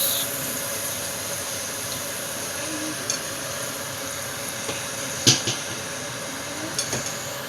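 Salmon pieces frying in oil in a frying pan, a steady sizzle, with a sharp clink of a utensil against the pan about five seconds in and a few lighter clicks.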